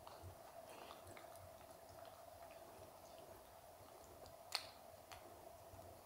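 Faint wet licking and small mouth clicks from a golden retriever puppy licking an adult dog's muzzle, over a steady low hum, with one sharper click about four and a half seconds in.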